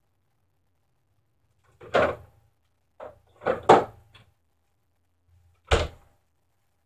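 Kitchen cupboard doors and drawers being opened and shut: about five separate knocks and clunks spread over a few seconds.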